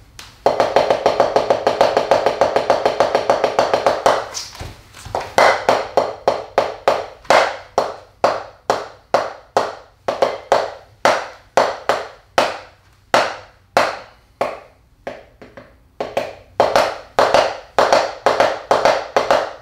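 Taiko sticks striking a drum practice pad in a rehearsed solo. First comes a fast, dense run of strokes for about four seconds, then a short break. After that the strokes come at varied spacing, sparser in the middle and quickening again near the end, with some hits louder than others.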